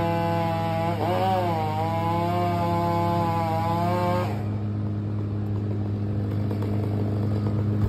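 Stihl MS 661 two-stroke chainsaw with a 36-inch bar running at high revs through a cut in a tree trunk. Its pitch dips and wavers about a second in as the chain loads up. A little past four seconds the high whine drops away and a lower, steadier engine note carries on.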